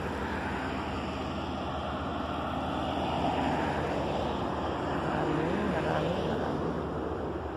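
Steady drone of motor cruisers' engines passing on the river, mixed with wind on the microphone, a little louder in the middle.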